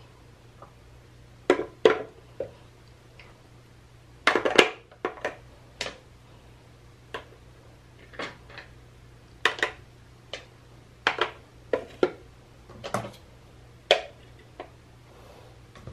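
Glass perfume bottles being set down one after another on a clear acrylic tiered stand: a series of irregular sharp clinks and taps, some in quick clusters, over a faint steady low hum.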